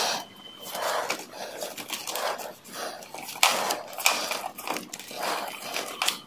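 Black vinyl electrical tape being pulled off the roll and wrapped around a spliced wire, a quick series of short noisy pulls, two or three a second.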